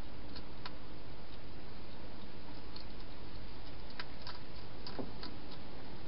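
Wild hedgehog eating from a bowl inside a plastic feeding station: a handful of faint, scattered chewing clicks over a steady hiss.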